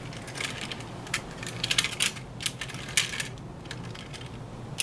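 Small irregular plastic clicks and taps as a model train passenger coach is set onto the track, its wheels knocking against the rails while it is lined up.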